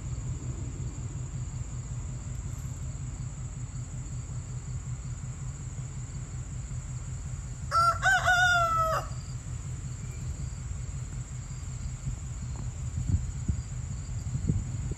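A rooster crows once, about eight seconds in: one short crow lasting about a second and a half.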